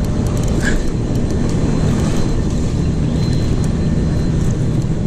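Steady low rushing rumble of fast-flowing river water and wind on the microphone, with a few faint irregular clicks.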